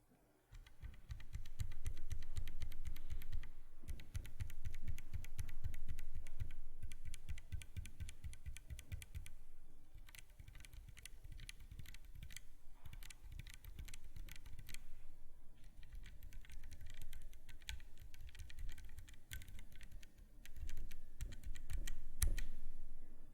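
Typing on a mechanical keyboard fitted with Gateron KS-3 Milky Pro Yellow linear switches: fast, continuous keystrokes with their clacks and bottom-out thocks.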